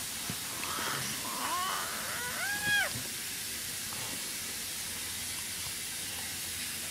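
Eleven-month-old baby making a few short, high-pitched squealing calls that rise and fall in pitch in the first three seconds, over a steady hiss.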